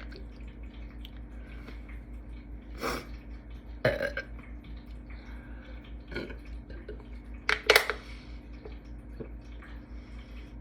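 A woman burping several times in short bursts, the loudest about three-quarters of the way through, after shotgunning a carbonated drink from a can.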